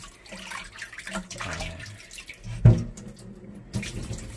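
Water sloshing and dripping as sliced beef is rinsed in a wire mesh strainer dipped in a steel bowl of cold water, with one loud knock about two-thirds through.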